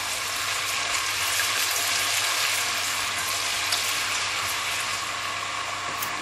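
Chopped onion sizzling in hot oil in a stainless steel pot while being stirred with a silicone spatula, a steady even hiss.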